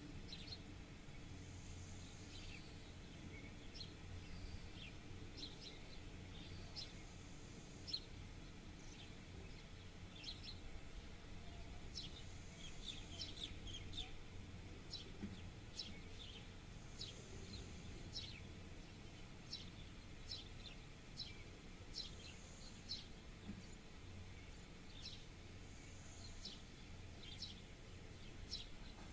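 Small birds chirping: many short, high chirps scattered throughout, some in quick runs, over a faint low steady hum.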